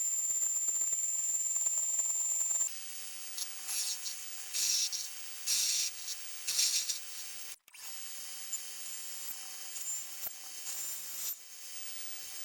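Mini lathe running during a final finishing cut on a taper. A steady high whine stops about two and a half seconds in, leaving a lower hum, with several short scraping bursts a few seconds later.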